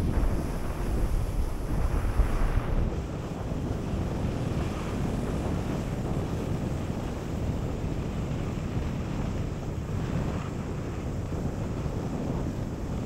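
Wind rushing over the microphone of a camera carried by a moving skier, mixed with the steady hiss and scrape of skis sliding on packed, groomed snow. The noise swells and eases a few times as the turns go.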